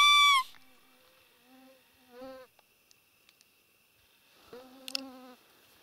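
A single short, high squeak from a roe deer call, dropping slightly in pitch at its end, blown to lure a buck. Then flying insects buzz past near the microphone, once briefly about two seconds in with a rising pitch and again for nearly a second near the end.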